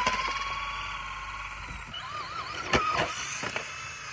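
Small electric motors of toy RC cars whining, the pitch rising and wavering up and down as they are driven. Sharp knocks right at the start and about three seconds in, the second the loudest, as the cars bump into each other.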